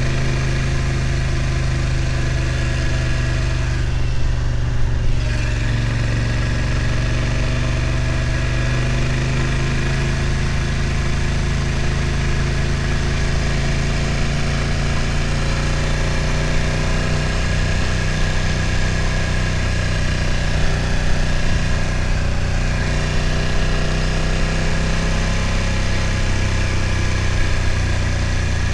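BMW F900 XR's parallel-twin engine running at low, fairly steady revs, its note holding almost level with only small rises and dips.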